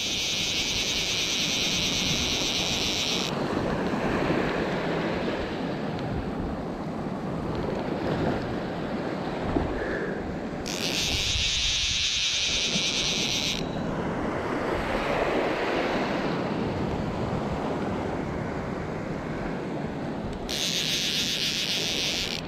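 Small waves washing on a shallow sand flat, with wind buffeting the microphone. A steady high hiss cuts in and stops abruptly three times, each lasting about three seconds.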